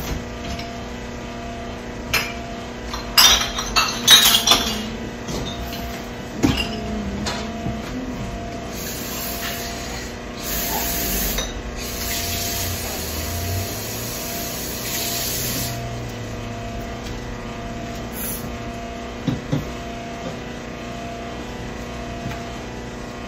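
A child eating vegetables: a cluster of clicks and knocks of a utensil on a dish, then longer stretches of chewing noise.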